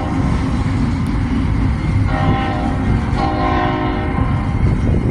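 Locomotive horn sounding a chord in two blasts, a short one about two seconds in and a longer one about a second later, over the steady rumble of a passing train.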